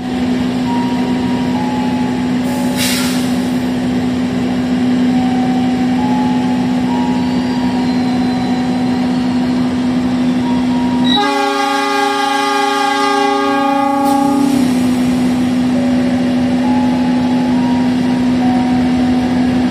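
Diesel locomotive engine running with a steady hum. About eleven seconds in, one long horn blast lasts about three and a half seconds, and a short hiss comes about three seconds in.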